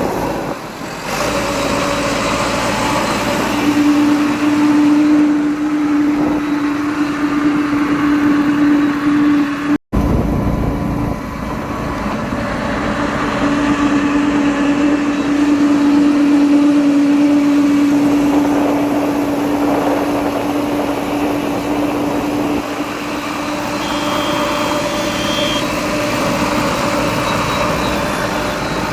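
Heavy diesel engine running steadily, its drone swelling and holding strong for several seconds twice as it works under load. The sound breaks off for an instant about ten seconds in.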